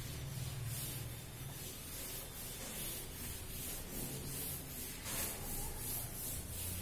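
A duster rubbing chalk off a blackboard in quick back-and-forth wipes: a run of short swishing strokes, about two to three a second.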